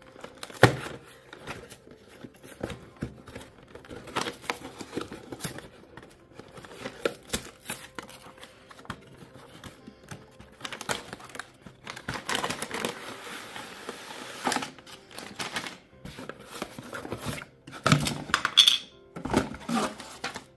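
Cardboard LEGO box being handled and opened, with clicks, knocks and paper rustle as the flaps are worked open. Near the end, paper bags of parts, a booklet and small plastic wheel pieces are tipped out onto a mat in a loud cluster of knocks. Quiet background music runs underneath.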